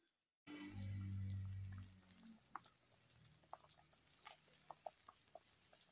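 Broth simmering in a metal cooking pot, heard as faint, scattered small pops and ticks. A short, steady low hum comes in about half a second in and stops near the two-second mark.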